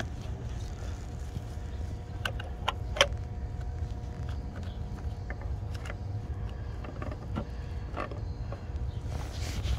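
Oil filter housing cap on a Mercedes-Benz 300SE's 3.2-litre straight-six being unscrewed by hand: a few sharp clicks and creaks, the loudest about three seconds in, over a steady low rumble and a faint steady hum.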